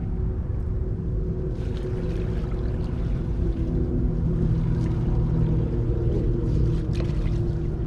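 A small engine running steadily with a constant hum, with a few short knocks or splashes over it.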